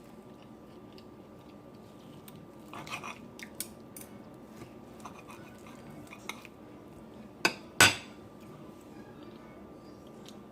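Cutlery clinking against a plate while eating, with scattered light clicks and two sharp clinks close together about three quarters of the way through.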